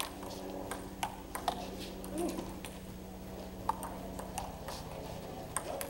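Table tennis ball clicking off paddles and the table: several sharp clicks in the first second and a half, then a few scattered single clicks. A steady low hum runs underneath.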